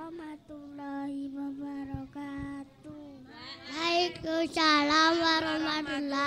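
A young child's voice singing a sing-song melody into a microphone, in held notes. About three and a half seconds in, a louder, higher singing voice takes over.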